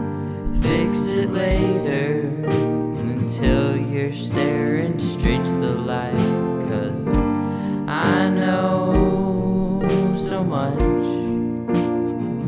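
Music: a song with a voice singing long, wavering notes over keyboard chords and a steady low drum beat.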